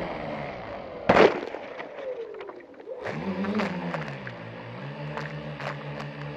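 A splash of water about a second in, then a small motor of a radio-controlled model on the water, its pitch rising and falling before holding steady, with water slapping against it.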